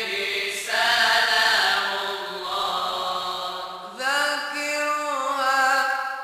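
Moroccan religious praise chant (madih nabawi): voices singing long, drawn-out notes together in a chanted melody, with a new phrase beginning about four seconds in.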